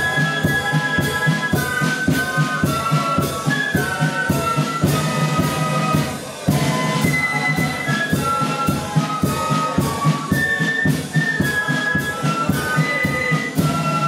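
A flute band playing a tune: many flutes together carrying the melody over side drums keeping a steady beat. The music pauses briefly about six seconds in, then carries on.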